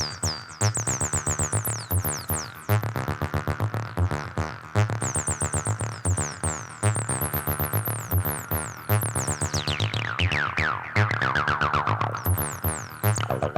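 Heavily distorted TB-303-style acid bassline playing a fast run of short, even notes, with screaming high-pitched glides that sweep up and down over the pattern.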